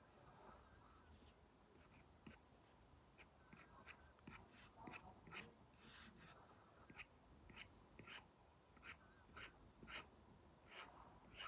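Apple Pencil Pro tip tapping and stroking on an iPad screen covered with a paper-like matte film: faint, irregular small clicks, one or two a second, with short scratchy strokes between them.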